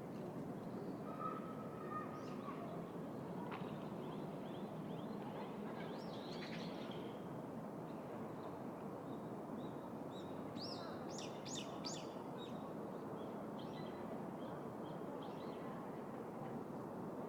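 City park ambience: a steady low hum of distant city traffic, with small birds chirping now and then and a quick run of high chirps about eleven seconds in.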